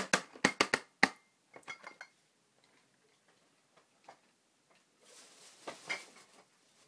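Handling noise: a quick run of sharp clicks and knocks in the first second as a glass beer bottle and a snack box are set down, a few lighter knocks after, then rustling with a couple of knocks near the end.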